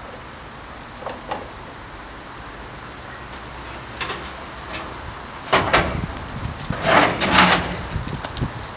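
A 1000-litre IBC tank in its galvanized steel cage being tipped upright onto its pallet: the metal cage and pallet knock and rattle against the asphalt. A few light knocks come early, and a louder run of clanks comes from about five and a half to seven and a half seconds in as the tank comes down onto its pallet.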